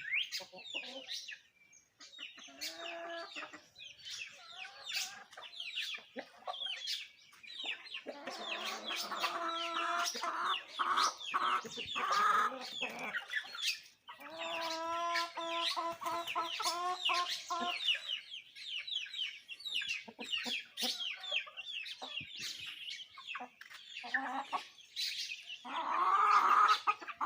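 A rooster crows several times, with long drawn-out crows in the middle and another near the end. Hens cluck and many small songbirds keep up a constant high chirping around it: a farmyard dawn chorus.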